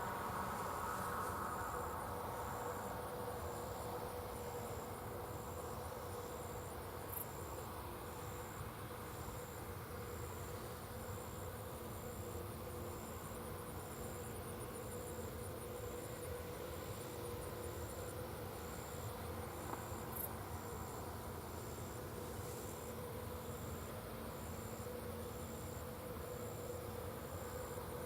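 Field insects chirping in a steady repeating pulse, over a low, even drone of machinery.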